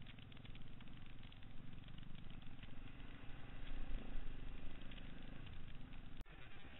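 Enduro motorcycle engine running at low, steady speed, heard close from the bike itself, with rattling over the rough dirt track. The sound drops out for an instant about six seconds in and resumes.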